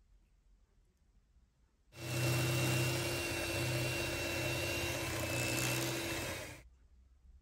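Electric hand mixer running at a steady speed, its wire beaters whipping a thick mascarpone and sour cream mixture in a glass bowl, with a constant whine. It starts about two seconds in after near silence and stops about a second before the end.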